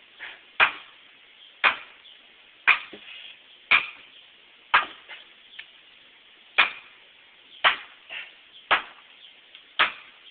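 Hammering: about nine hard blows, evenly spaced roughly a second apart, with one skipped beat midway.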